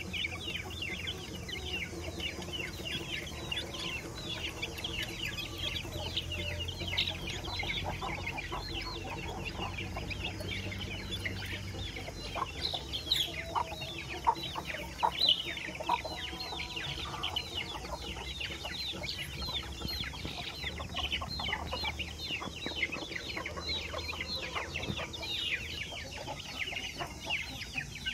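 Young Aseel and Erode chicks peeping while they feed: a dense, continuous chorus of short falling chirps from many birds at once.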